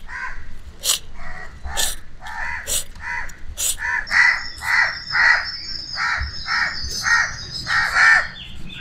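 Crows cawing over and over, about two caws a second, with a few sharp clicks in the first few seconds.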